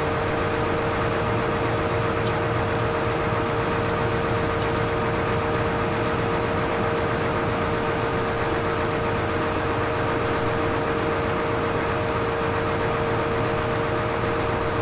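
John Deere 9986 cotton picker running steadily, its engine and machinery giving a constant low hum with a steady whine on top.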